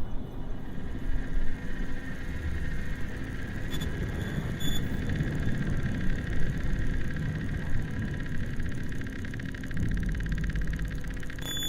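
Low, steady rumbling drone with a few faint sustained high tones above it, part of an ambient sound-art soundscape.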